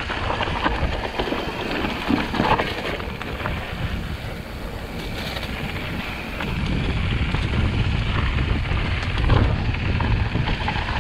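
Wind buffeting the microphone as a mountain bike rides down a dirt trail, with tyre rumble and short rattles and clicks from the bike. The rumble grows louder about halfway through.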